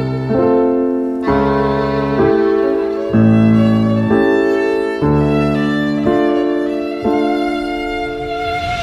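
Violins playing sustained, slow melodic lines over piano accompaniment, the harmony changing with a fresh piano chord about once a second.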